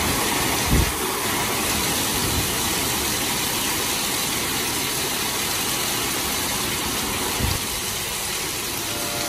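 Heavy rain pouring down in a steady, loud hiss, with two brief low thumps, about a second in and near the end.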